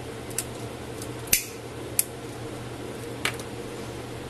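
Four short, sharp clicks from a small lighter being struck and handled against grosgrain ribbon to heat-mark it, the loudest just over a second in, over a faint steady hum.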